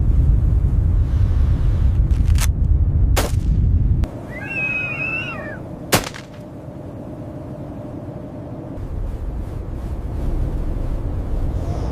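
Deep rumbling noise like storm wind, broken by three sharp cracks about two, three and six seconds in. A short wavering high cry comes between the last two cracks. The rumble drops off about four seconds in and builds again near the end.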